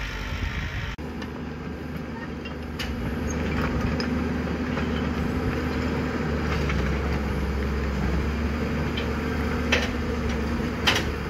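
Caterpillar tracked hydraulic excavator's diesel engine running steadily under work, with a few sharp knocks.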